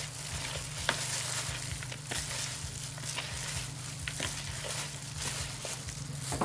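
Hands mixing small whole fish with shredded turmeric leaves in a plastic basin: a steady, wet rustle dotted with small clicks.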